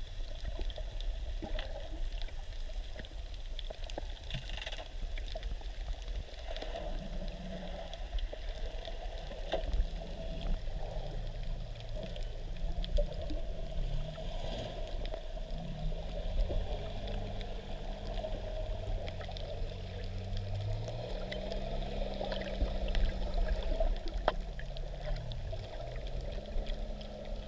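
Water noise on a camera in the sea: sloshing and bubbling with a low rumble. From about seven seconds in, low steady tones come in and shift up and down in pitch.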